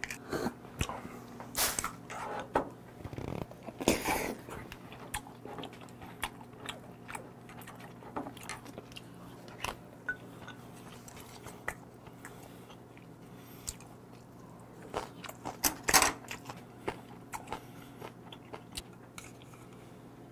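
Close-up eating of soy-sauce-marinated raw blue crab: chewing and biting on the crab and its shells, with many sharp clicks and crunches. The loudest crunches come about 4 seconds in and again about 16 seconds in.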